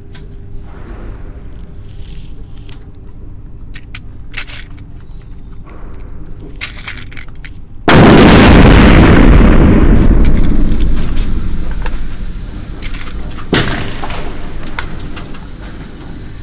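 A sudden, very loud hiss of high-pressure air about halfway through, fading away over some four seconds, as the filling line from a portable PCP compressor is bled off at the air rifle's yellow fill coupler. Small clicks and knocks of the fittings being handled come before and after it.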